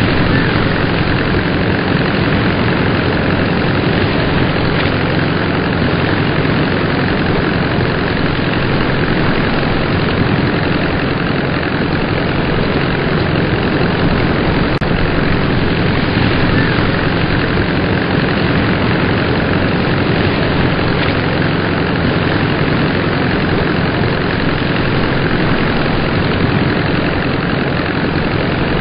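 Simulated engine sound of a Nakajima B5N2 'Kate' torpedo bomber, idling steadily with no change in speed.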